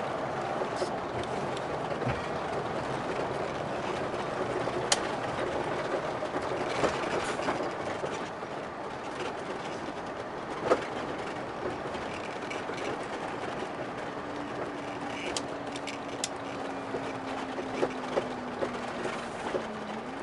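Road noise and interior rattles inside a large motorhome cabin as it slows from freeway speed with a trailer behind it. It gets a little quieter about eight seconds in, and scattered sharp clicks and knocks come from the interior. From about twelve seconds a low steady hum sinks slightly in pitch, then rises near the end.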